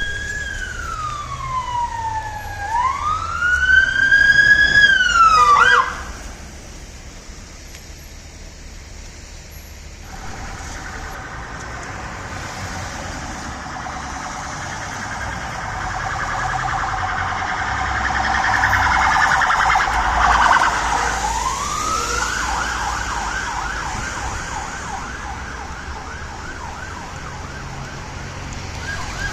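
UK police car siren. It begins on a slow wail that sweeps down and back up, cut off abruptly after about six seconds. After a short lull it switches to a fast warbling yelp at about ten seconds, and after a rise near twenty-one seconds it settles into a rapid, even pulsing yelp. A low rumble runs underneath.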